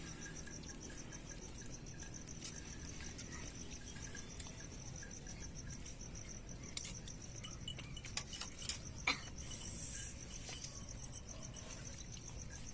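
Crickets chirping in a steady, fast pulsing trill, with a few scattered sharp clicks and clinks around seven to nine seconds in.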